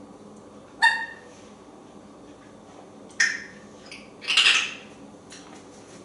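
African grey parrot calling: a short whistled note about a second in, then two harsh, noisy squawks, a sharp brief one just after three seconds and a longer one around four and a half seconds.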